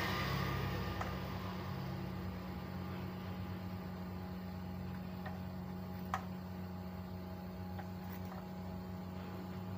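Steady low background hum with a few faint light clicks, the sharpest about six seconds in.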